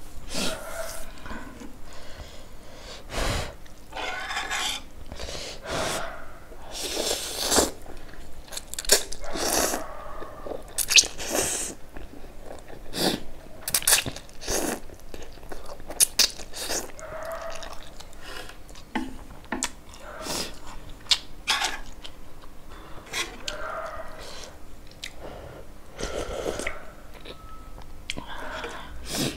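Close-miked slurping and chewing of spicy Shin Ramyun noodles in soup: irregular wet mouth clicks, sucking slurps and smacks, with a spoon scooping the broth near the end.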